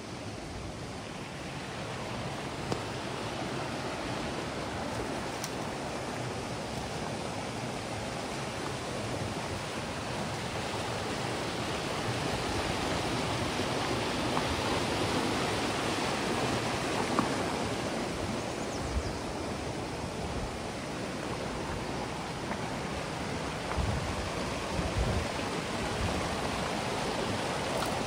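Creek water rushing steadily, growing somewhat louder over the first dozen seconds, with a few brief low bumps in the last third.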